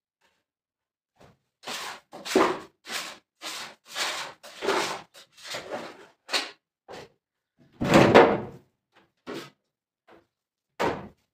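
Hands working inside a large galvanised metal tub: an uneven run of short knocks and scrapes, about two a second, with the loudest knock about eight seconds in.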